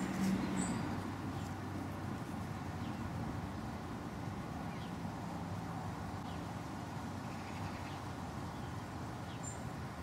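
Steady outdoor background noise with a low hum, a few faint high chirps near the start and near the end.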